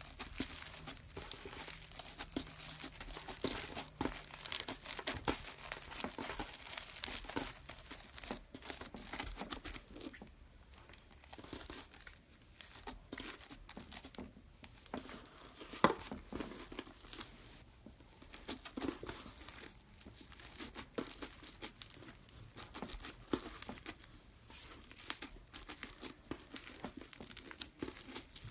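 Slime being squished and stretched by hand: dense, irregular crackling and popping, with one sharper, louder pop about sixteen seconds in.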